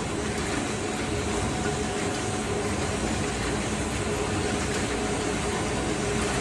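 Wood veneer machine running steadily as a continuous sheet of veneer feeds over its rollers onto a stack: an even mechanical noise with a faint steady hum.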